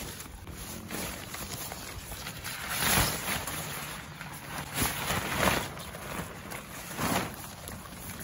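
Green vinyl car tarp rustling and swishing as it is pulled out of its bag and dragged open over dry wood chips and leaves, with louder swishes about three, five and seven seconds in.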